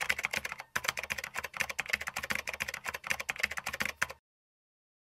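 Rapid computer-keyboard typing clicks, a sound effect for on-screen text being typed out letter by letter. They stop about four seconds in, leaving dead silence.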